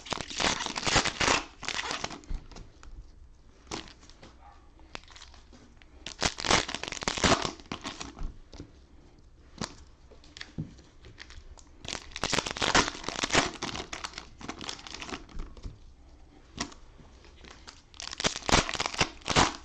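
Plastic cellophane wrappers of trading-card cello packs crinkling and tearing as they are handled and opened, in four bursts a few seconds apart.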